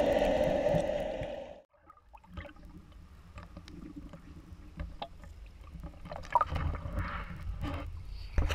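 Muffled underwater rushing during a freediver's ascent, cutting off abruptly about a second and a half in as the surface is broken. Then light splashing and lapping of water at the surface, with a few sharper splashes near the end.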